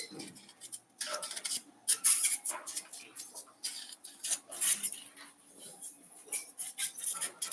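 Irregular clinks and rattles of small hard items being pushed around while a drawer is rummaged through in search of a camera remote control.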